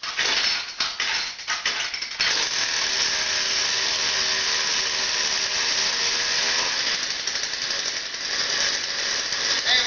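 36cc two-stroke chainsaw engine on a motorised mountain bike starting on choke: it fires unevenly for about two seconds, then catches and runs steadily.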